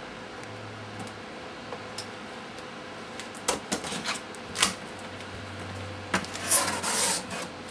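Keyboard's cardboard retail box being handled for unboxing: after a quiet start, a few sharp taps and knocks, then a louder scraping rustle near the end.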